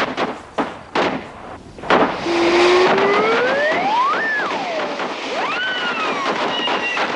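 Fireworks going off: a rapid crackle of firecracker pops for about two seconds, then a hiss with a whistle that rises, peaks and falls, and a second rising-and-falling whistle near the end.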